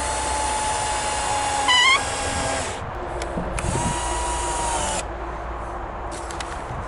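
Cordless drill-driver driving wood screws through boards into the floor frame. The first run lasts about three seconds and ends in a brief, louder rising squeal. After a short blip comes a second run of just over a second.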